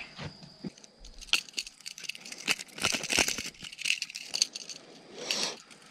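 Metal hooks and hardware of a hard-bodied fishing lure clicking and rattling as a bass is unhooked by hand, in irregular ticks and jingles with a brief louder rustle near the end.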